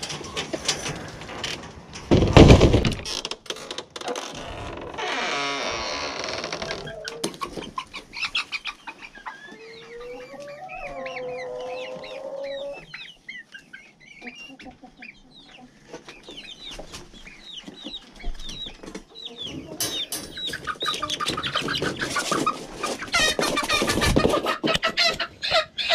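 Chickens clucking and squawking as they are handled by hand, with a loud knock about two and a half seconds in. A drawn-out call rises and falls near the middle, and a fast run of squawks fills the last few seconds.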